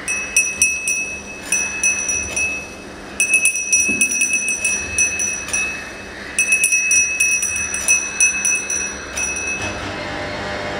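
A glass vessel struck again and again by a motor-driven striker rod, ringing with a clear high tone. The taps come in about four rapid bursts with short pauses between them, stopping shortly before the end, over a faint low hum.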